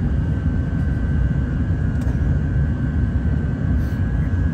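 Jet engines of an Airbus A380, Rolls-Royce Trent 900s, running steadily: a loud low rumble with a thin whine held on one pitch above it.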